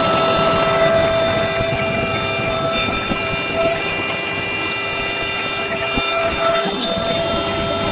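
Electric air pump running steadily, a high whine over rushing air as it inflates the PVC boat's main air chamber.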